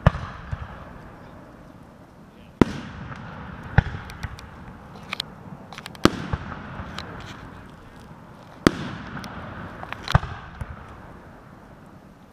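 Aerial fireworks shells bursting overhead: about seven sharp bangs, one every one to three seconds, each followed by a fading rumble, with smaller crackles in between.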